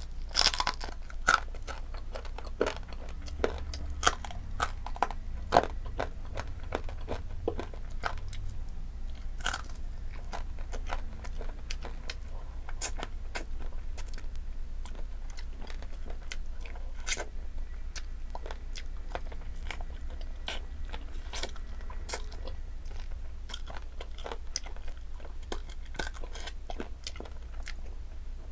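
A person eating with their hands right at the microphone: crunchy bites and wet chewing and lip clicks from fried tilapia and rice. The bites are sharpest and most frequent in the first few seconds, then steady chewing follows. A low steady hum runs underneath.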